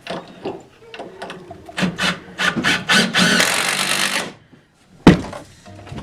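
Wooden 2x4 framing lumber being rubbed and scraped: a run of quick scraping strokes builds to one longer scrape that stops suddenly, then a single sharp knock about five seconds in.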